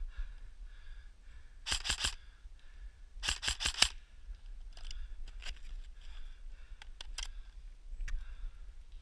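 Airsoft electric gun firing two short full-auto bursts of rapid clicks, about two seconds and three and a half seconds in, followed by a few scattered single clicks.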